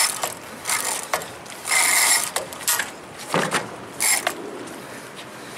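Heavy fishing reel ratcheting in about eight short, irregular spurts while the rod is under load from a hooked goliath grouper.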